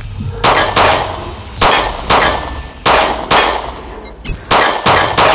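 Smith & Wesson Equalizer 9mm pistol fired about nine times, mostly in quick pairs about half a second apart, each shot with a ringing tail.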